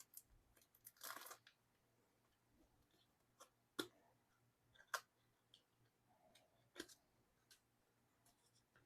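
Mostly near silence, with faint handling noises from photo card packaging being opened: a brief rustle about a second in, then a few soft, separate clicks and taps.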